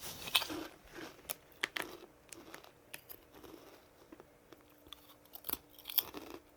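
A person biting into and chewing a crunchy corn chip, with irregular sharp crunches.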